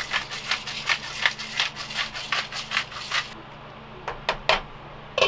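Hand-twisted pepper grinder cranked over a pot, a rapid run of gritty clicks for about three seconds as peppercorns are cracked. Then a few separate knocks as a glass pot lid is handled and set on the pot.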